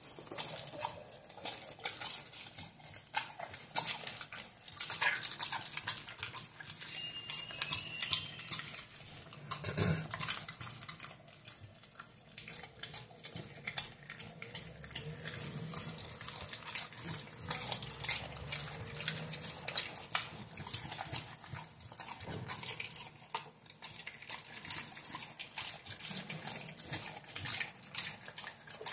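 A dog chewing a piece of raw meat: an irregular run of small clicks throughout. A brief high squeak sounds about seven seconds in.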